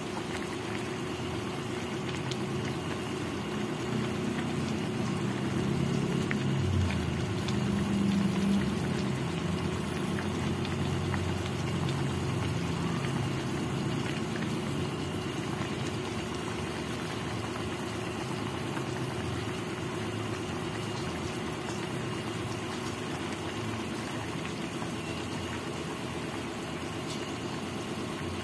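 Pork and chicken adobo in coconut-milk sauce boiling in a wok: a steady bubbling simmer with a low rumble.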